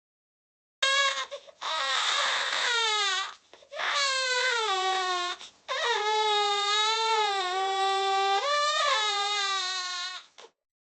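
A young child crying hard, wailing in long drawn-out cries whose pitch slides downward, with short breaks for breath between them. It starts about a second in and stops shortly before the end.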